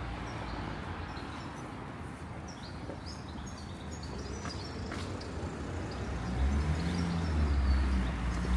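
Small birds chirping in short high notes while a motor vehicle approaches, its low rumble growing louder over the last two seconds or so.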